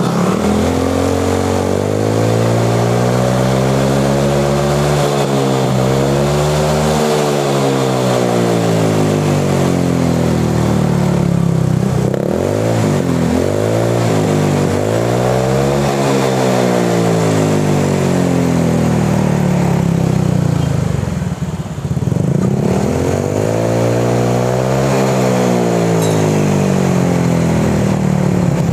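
Honda Vario 150 scooter's single-cylinder engine revved up and down through a freshly fitted SKR aftermarket racing exhaust, rear wheel spinning free on the centre stand. There are several long rises and falls in pitch, with a few quick short blips about halfway through.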